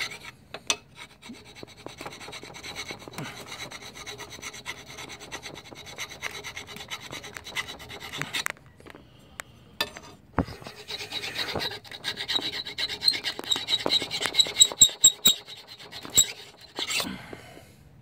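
Flat metal file scraping paint off a scooter's steel frame down to bare metal, in rapid back-and-forth strokes. The rasping stops for a couple of seconds around the middle, then resumes louder.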